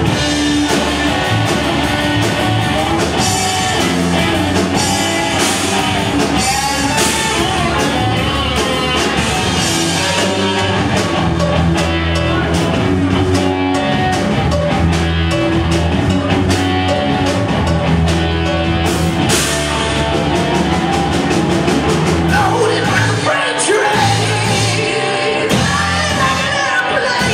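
Rock band playing live: electric guitars and a drum kit, with a singer's vocals.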